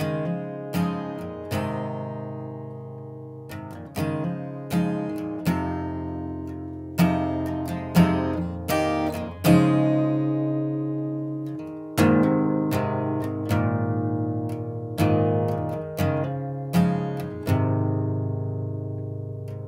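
Background music: an acoustic guitar picking single plucked notes at an unhurried pace, each note ringing on and fading.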